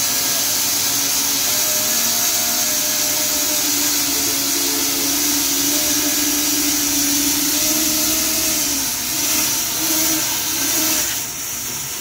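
Large sawmill band saw cutting through a big rain-tree (koroi) hardwood log: a steady, loud hiss of the blade in the wood over the running machine's hum, which wavers slightly. It dips and changes briefly near the end.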